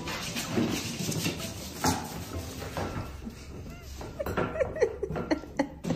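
Small black-and-white kitten meowing, a few short calls that bend in pitch in the second half, over background music with scattered clicks and knocks.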